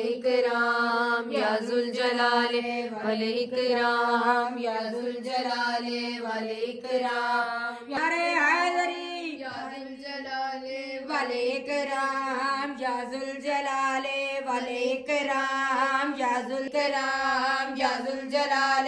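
A woman's voice chanting a devotional recitation in a melodic, drawn-out line over a steady held pitch, with a change of phrase about eight seconds in.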